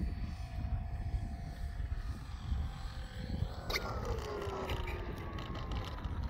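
Gusty wind buffeting the microphone in a low, uneven rumble. Under it a faint whine slowly falls in pitch. A little over halfway a sharp click comes, followed by a second whine that glides down and some light clicking.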